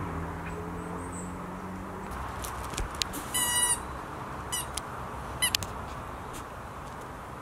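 A squeaky rubber toy ball squeaks three times: one held squeak of about half a second, then two short ones about a second apart, with a few light clicks just before. Under it, a faint low drone fades out early on.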